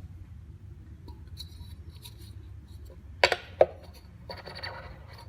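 Parts of a Rega RP1 turntable being handled during reassembly: a few light ticks, two sharp clinks a little after three seconds, then rubbing and scraping.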